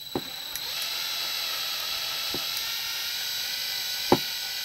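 Cordless drill running steadily with a high whine as it drills out a rivet holding a diecast model truck's plastic chassis together, with a few clicks, the sharpest about four seconds in.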